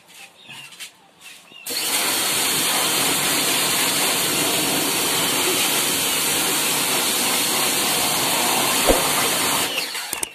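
Kawasaki pressure washer running with its water jet spraying: a loud, steady hiss that starts suddenly about two seconds in as the trigger is pulled and cuts off suddenly near the end when it is let go.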